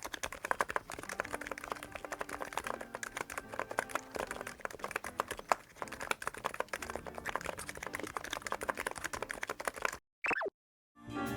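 Fast typing on a NIZ X99 electrostatic capacitive (topre-style) keyboard, many keystrokes a second, that stops about ten seconds in. A short falling swoop follows, and music starts at the very end.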